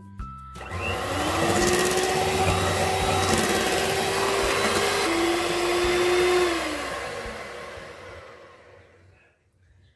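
Handheld electric mixer whisking a mango-and-whipped-cream mixture in a steel bowl. The motor whirs up about a second in and runs steadily, steps down to a lower pitch around five seconds, then runs down and fades out.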